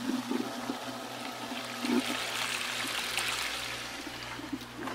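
Samsung washing machine's drain pump running with a steady low hum as water rushes out through the drain. The pump now runs on a jumper wire laid past a break in its yellow supply wire, so the washer is pumping out again.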